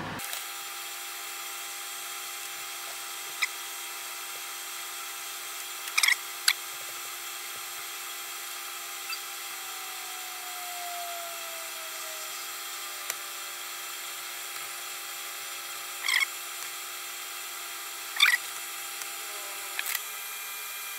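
A fume extractor fan on flexible ducting runs steadily with a hum and hiss while header pins are soldered by hand. A few short taps and clicks come at intervals, the loudest about six seconds in and again near sixteen and eighteen seconds.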